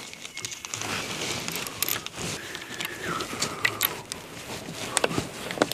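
Close handling noise of hands working electrical wires and bullet connectors into place: rustling with many small plastic clicks and rattles, and two sharper clicks near the end.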